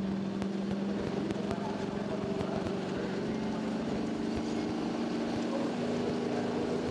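Super stock diesel pulling tractor's turbocharged engine running at high revs, its pitch holding for about a second and then climbing slowly and steadily.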